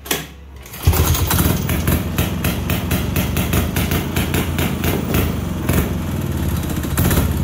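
1965 Moto-ski snowmobile's single-cylinder engine catching about a second in on a shot of starting fluid and running steadily, after a brief burst right at the start. It fires and runs on the spray alone, with no fuel tank connected.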